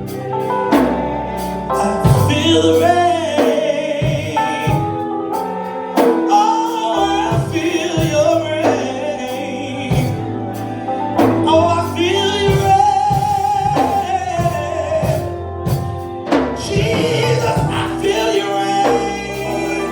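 Gospel music with singing over an accompanying band, with drum hits keeping the beat.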